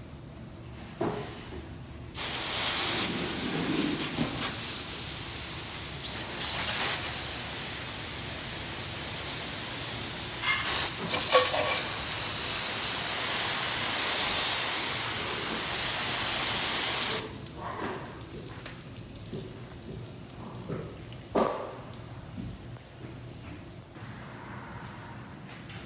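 Water spraying from a hose onto a fire engine's body: a loud steady hiss that starts abruptly about two seconds in and cuts off abruptly about fifteen seconds later. A few light knocks follow.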